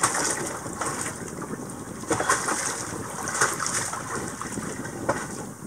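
Sea water splashing and sloshing against a sailboat's hull and swim ladder as the boat rolls, with several louder splashes.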